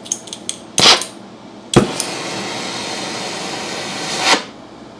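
Oxyacetylene torch being lit: a few sharp clicks and a loud burst, then it catches with a pop just under two seconds in and burns with a steady rushing hiss. The hiss swells and cuts off suddenly near the end as the flame goes out.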